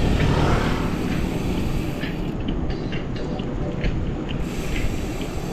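Wind rushing over the microphone of a camera riding on a moving bicycle, a steady low rumble, with scattered light ticks.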